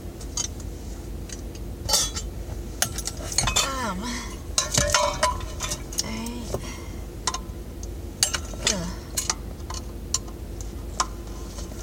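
Repeated metallic clinks and knocks as the brass-finish blade arms and hardware of a ceiling fan are handled and worked loose, over a steady low hum of the car running with its heater on.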